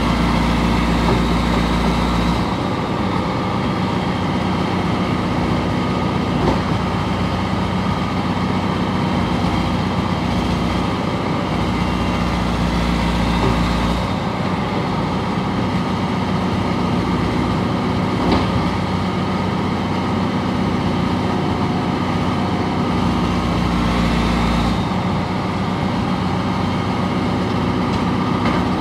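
CAT 955 track loader's diesel engine running steadily, with a deep low rumble that swells and fades a few times.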